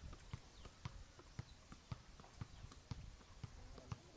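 A fairly even run of short, sharp taps, about three to four a second.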